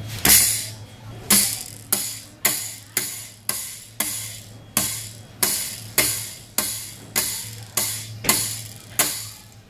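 Plastic pin art toy's pins clattering as it is pressed down again and again. Each push brings a sharp jingling rattle that fades out, about fifteen in all, one every half second to second.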